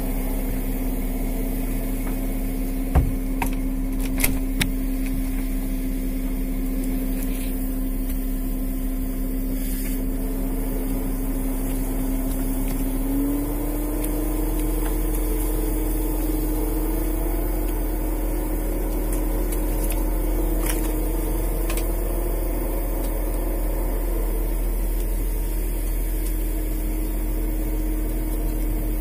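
Steady mechanical drone of a fishing boat's engine and hydraulic longline hauler running, its pitch stepping up slightly about halfway through. A few sharp knocks a few seconds in.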